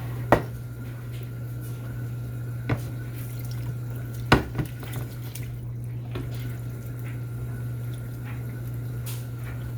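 A few sharp knocks of a utensil against a mixing bowl, the loudest about four seconds in, as a thick ground-beef and cream-soup mixture is poured and scraped out over rice. A steady low hum runs underneath.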